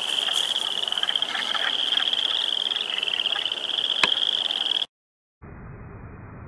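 A chorus of boreal chorus frogs trilling: a dense, high, pulsing trill with a few short clicks mixed in, and one sharp click about four seconds in. It cuts off abruptly about five seconds in, and a faint, different background follows.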